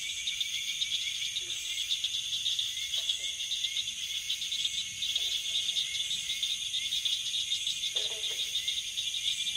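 Steady insect chorus, a dense high trill with no break. A few brief, faint, lower calls come through it about every couple of seconds.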